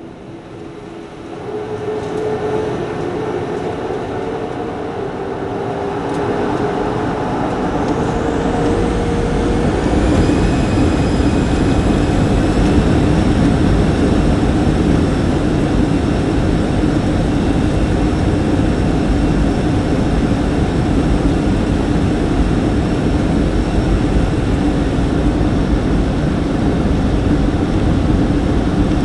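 Boeing 737-300's CFM56-3 turbofan engines heard from the cabin, spooling up for takeoff: the rumble builds over the first couple of seconds, a whine rises in pitch from about eight to twelve seconds in, then engines and rumble hold steady at takeoff thrust.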